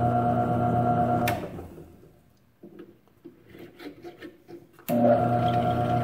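Drill press motor humming steadily, switched off about a second in and winding down. A few light clicks follow as the wooden pen blank is handled, and near the end the motor is switched back on and hums again.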